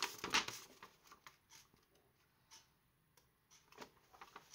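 Paper instruction sheet being handled and unfolded: crackly rustling, loudest in the first second, then fainter scattered rustles.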